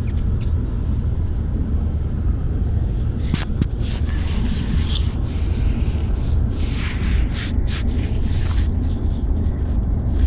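Steady low rumble of road noise inside a moving car, with scattered rustling and soft clicks from about three seconds in through the middle.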